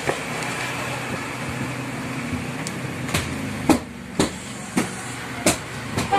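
Steady background traffic noise. In the second half come about six sharp knocks, roughly half a second apart.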